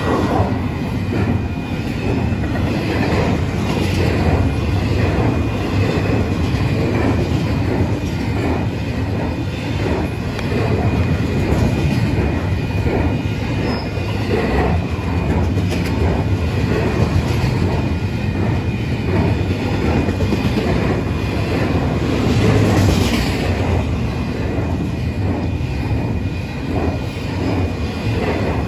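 Double-stack intermodal freight cars rolling past at close range: a steady loud rumble of steel wheels on rail, with rapid clicking as the wheels cross rail joints.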